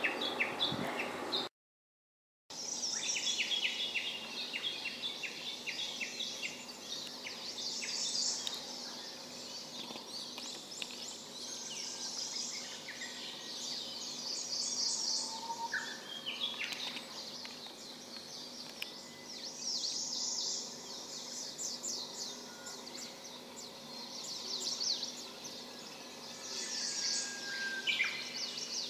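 Wild birds calling and singing, with clusters of quick, high chirping trills every few seconds over a faint steady background. The sound drops out completely for about a second, about two seconds in.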